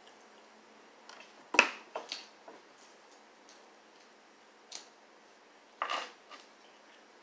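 Close-up eating sounds: sharp, short clicks and crackles from chewing and handling fried chicken. A cluster of four or five comes between about one and two and a half seconds in, the loudest among them, then one more near the middle and a pair near the end.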